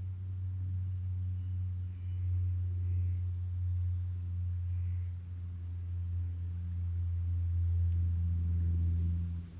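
A steady low hum, with a faint steady high hiss above it.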